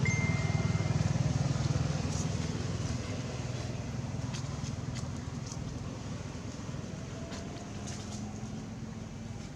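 A motor vehicle's engine running, a low pulsing rumble that is loudest in the first couple of seconds and then slowly fades away.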